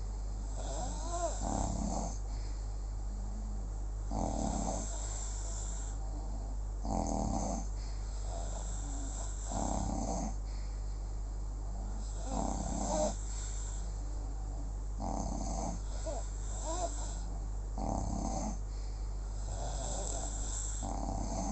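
Snoring: about eight even snores spaced roughly two and a half seconds apart, a couple with a short whistling note on the breath.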